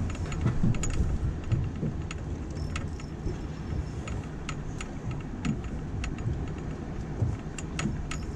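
Steady low rumble of a small boat's outboard motor, with scattered light clicks and rattles, a few a second, from gear on board.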